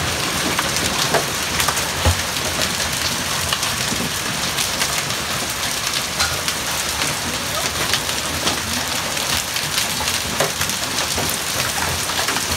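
Hailstones and rain striking paving slabs and garden plants: a steady, dense hiss full of sharp individual ticks as the hailstones hit.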